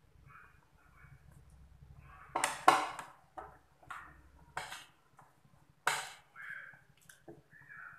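A metal spoon scraping and clinking against a plate as food is scooped up: several sharp clinks, the loudest about three seconds in and again about six seconds in.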